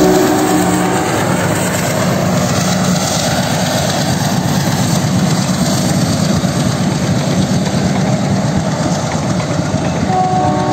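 Passenger train passing close by: the drone of the WDM3A diesel locomotive's ALCO 16-cylinder engine fades over the first few seconds, giving way to the steady rattling roll of coaches over the rails. Several steady tones come in near the end.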